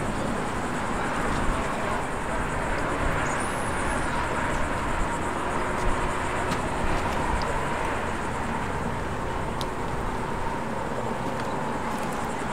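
Steady road-traffic noise at an even level, with a heavy low rumble.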